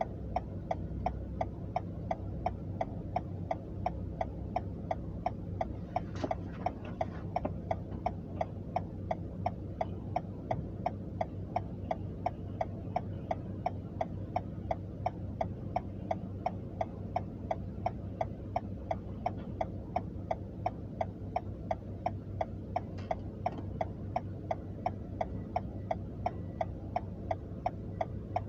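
Car's indicator ticking steadily, a little over two clicks a second, over the low steady hum of the idling engine, heard inside the stationary car's cabin.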